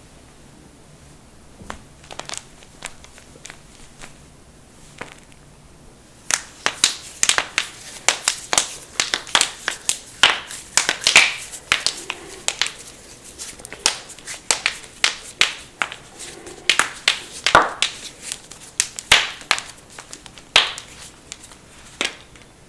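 Joints being cracked: a few faint clicks, then from about six seconds in a dense run of sharp cracks and pops, several a second.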